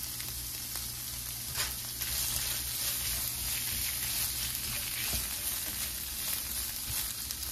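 Shrimp sizzling steadily in melted butter and garlic in a nonstick frying pan, stirred and turned with a silicone spatula partway through.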